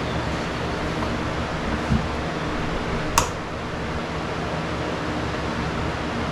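Steady fan-like hum of room ventilation, with a short low knock about two seconds in and a single sharp click about three seconds in.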